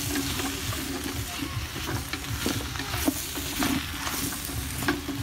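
Onions, carrots and potatoes sizzling as they are sautéed in a stainless steel pot and stirred, with scattered light scrapes and taps of the utensil against the pot.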